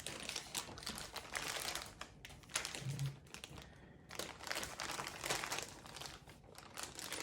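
Plastic packaging crinkling as it is handled, in irregular bursts with a short pause in the middle.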